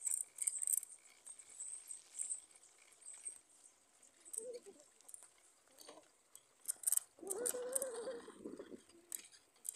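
Clicks and rattles from a camera mounted on a moving bicycle, with a short animal call about four and a half seconds in and a longer one, the loudest sound, about seven seconds in.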